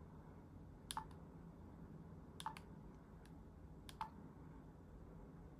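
Buttons on a Cisco Flip Ultra camcorder being pressed while stepping through its settings menu: three sharp clicks about a second and a half apart, the middle one doubled, with a couple of fainter ticks between them.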